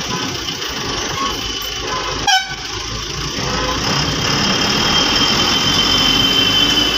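Bus engine running and road noise heard from inside the cab while driving, with a horn sounding and a brief sharp knock about two seconds in.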